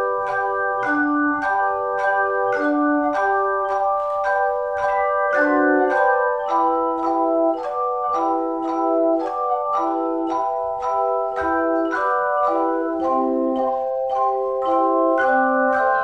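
Organ music: a prelude of sustained chords, with a new chord or note struck about twice a second in a steady rhythm.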